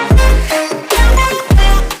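Background pop music: an instrumental stretch with a heavy bass drop about every half second.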